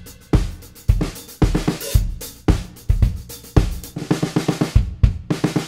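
Drum kit groove of kick drum and cymbals around a dead, dry snare: a 6.5×14-inch steel snare muffled by a bandana laid across its coated top head, snares tight. Near the end the beat turns into a fill of quick, closely spaced strokes.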